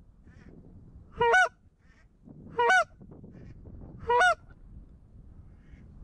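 Goose call blown close by in three loud honks about a second and a half apart, each breaking from a low note up to a higher one, calling to passing waterfowl.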